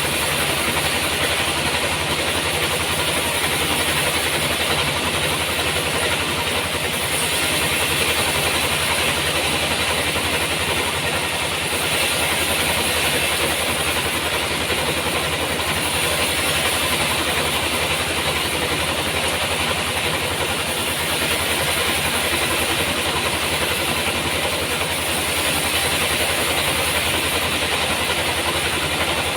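Sawmill machinery running steadily: a continuous motor drone with a strong even hiss on top.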